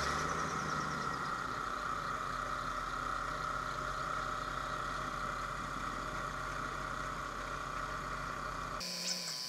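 A boat's engine running steadily with an even, idle-like hum. Near the end it cuts off abruptly, leaving a high, thin steady buzz with faint ticks.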